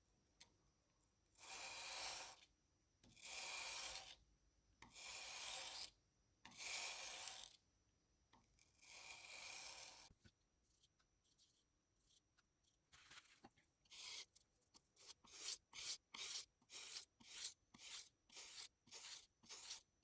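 Steel chisel bevel being rubbed back and forth on wet 320-grit sandpaper laid on glass: five slow strokes of about a second each, then, after a short pause, a quicker run of short strokes at about two a second.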